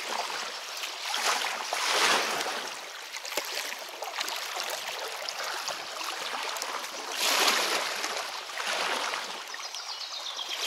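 River water running and splashing around a kayak, with two louder surges of splashing, about two seconds in and again about seven seconds in.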